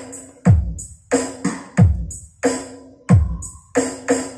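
Electronic dance music with a drum-machine beat, played loud through a DIY TDA7293 amplifier: deep kick drums that drop in pitch land about every two-thirds of a second, with crisp hi-hat hits between them.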